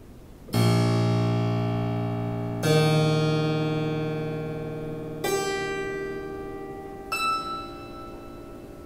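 Harpsichord strings plucked by hand inside the open case: four sudden clusters of many notes at once, each left ringing and slowly fading, the first the deepest and the last smaller and higher.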